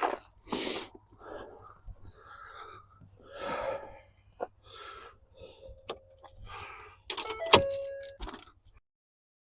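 Handling noises while working on the truck's headlight wiring: rustling, scattered clicks and light metallic jingling. A loud sharp clack with a short ring comes near the end, then the sound cuts off abruptly.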